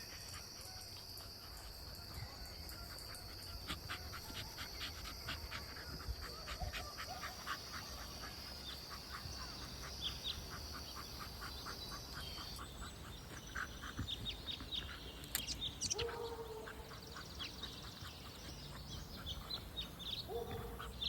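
Outdoor ambience with short animal calls: a steady high hiss for the first half, a long run of quick ticks, then a few short low calls near the end.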